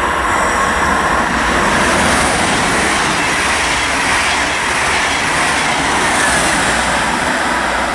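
Deutsche Bahn double-deck regional train passing close at speed, with a loud, steady rush of wheel and rolling noise on the rails.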